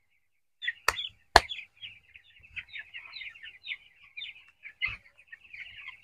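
A flock of young broiler chicks peeping continuously, many short high peeps overlapping. Two sharp clicks half a second apart about a second in, and another knock near the end.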